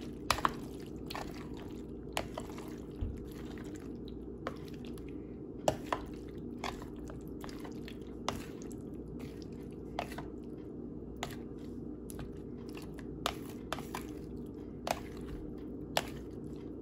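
Diced fruit and agar-agar cubes in cream and condensed milk being stirred with a spatula in a bowl: wet squishing with irregular sharp clicks of the spatula against the bowl.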